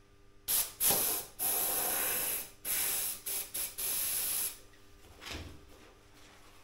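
Compressed air from a workshop compressor's air hose and chuck hissing in a string of short bursts, one longer, as air is let carefully into a new bicycle inner tube. The hissing stops about two-thirds of the way in.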